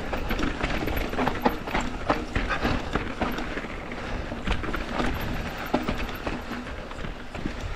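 Mountain bike rolling downhill over a rough dirt and rock trail: tyres crunching, with the bike rattling and clattering in quick, irregular knocks.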